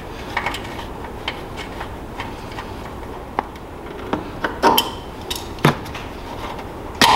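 Hand tools and metal parts clicking and clanking as a wrench is worked on the buggy's engine fittings, in irregular knocks with a few louder clanks, the loudest near the end.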